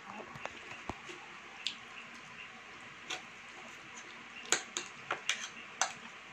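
Light clicks and clinks of kitchen utensils and dishes being handled on a counter: a few at first, then a quicker run of them from about four and a half seconds in.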